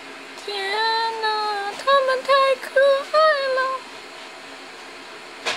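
High-pitched vocal calls: one long drawn-out note, then five short ones in quick succession.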